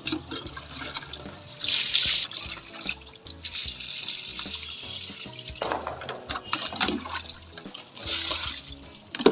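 Water poured from a plastic jug and tub onto potted plants, splashing into the soil in several separate pours.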